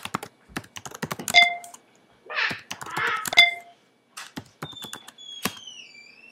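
Typing on a computer keyboard: a run of key clicks, with a short electronic alert beep sounding twice, about two seconds apart, as the command is entered. A faint falling squeak near the end.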